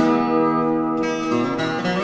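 Background acoustic guitar music: a picked, strummed tune with a fresh strike of notes at the very start.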